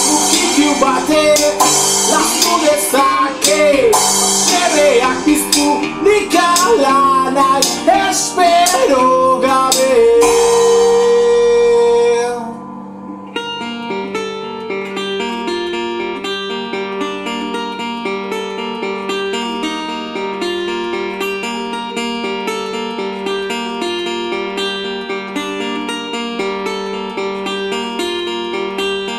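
A song played by drums with crashing cymbals, a fingerpicked resonator guitar and a male voice singing, the voice ending on a long held note. About twelve seconds in the drums and voice stop and the resonator guitar plays on alone, quieter, in a steady picked pattern.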